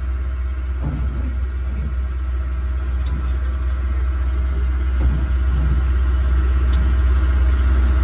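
Komatsu WA180 wheel loader's diesel engine running with the throttle opened, its sound building slowly and steadily; the engine has a rod knock.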